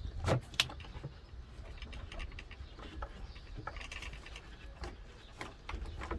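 Scattered light clicks and knocks, a few sharp ones near the start and a cluster with a brief scraping noise a little past the middle, over a faint low background hum: handling noise from tools or parts.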